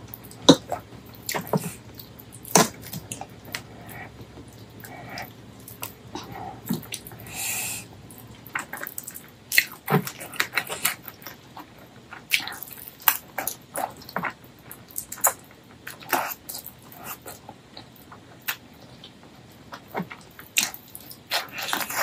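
Close-miked mukbang eating sounds: wet chewing and lip smacks on gelatinous braised pork leg in spicy curry, with sticky finger-and-food noises, coming as many short, irregular smacks and clicks.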